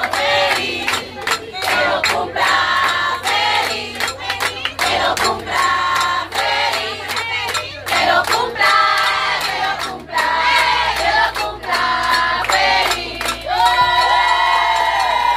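A group of voices chanting and singing together with hand claps, ending in a long held shout near the end.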